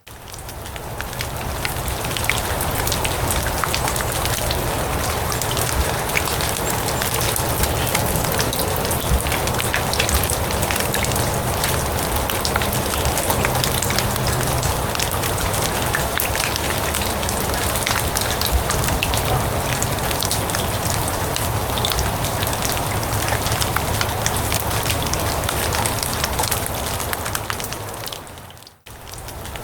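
Steady rain falling on grass and leaves, an even hiss thick with many separate drop hits. It fades out briefly near the end and comes straight back.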